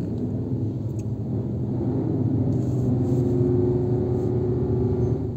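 Heavy diesel engine rumble from the car ferry as it manoeuvres to dock, heard from inside a car. It swells about two seconds in, with a steady hum riding on top toward the end.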